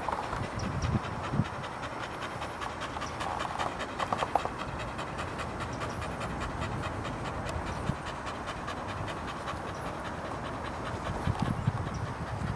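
Staffordshire bull terrier panting steadily with its mouth open, in an even rhythm of quick breaths.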